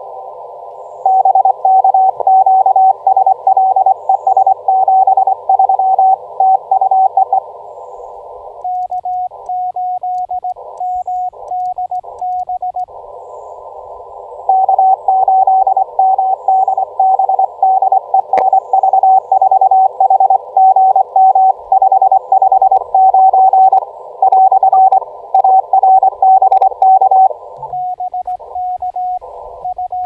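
Morse code (CW) from a ham radio transceiver, an Elecraft KX2. A strong station's keyed tone sounds over a band of receiver hiss. It alternates twice with the operator's own quieter sidetone, where the hiss drops out between the dots and dashes as the radio switches to transmit: the back-and-forth of a CW contact. There is a single sharp click about halfway through.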